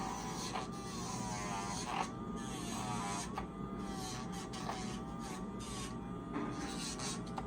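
Small electric motor buzzing steadily, its pitch dipping and wavering every second or so, with a few short clicks: a pet nail grinder working on a dog's nails.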